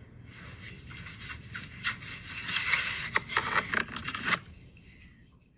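Rustling and scraping handling noise with scattered sharp clicks, growing louder and then cutting off about four and a half seconds in.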